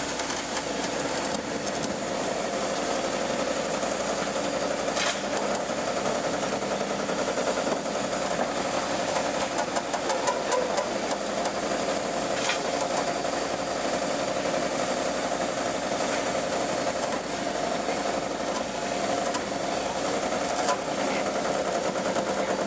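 JCB JS210 excavator's diesel engine running steadily under work, with a few sharp clanks and a brief rattle of clicks about ten seconds in.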